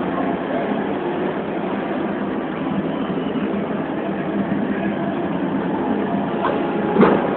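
Steady crowd noise in a large hall around a wrestling ring, with a single sharp smack from the wrestlers in the ring near the end.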